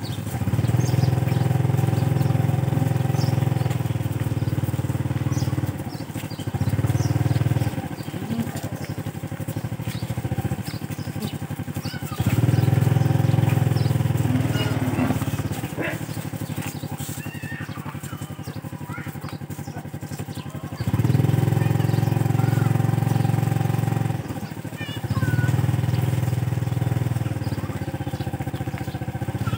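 Small engine, like a motorcycle's, running at low speed throughout. It grows louder in several spells of a few seconds each and drops back to a quieter running sound in between.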